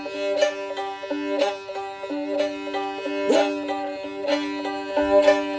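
Old-time fiddle tune played on a bowed fiddle, the melody sounding over a steady drone note held on a neighbouring string.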